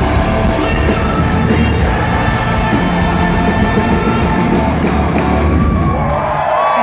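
Live post-hardcore rock band playing loud: electric guitars, bass and drums with sung and yelled vocals. Near the end a held note slides up and sustains.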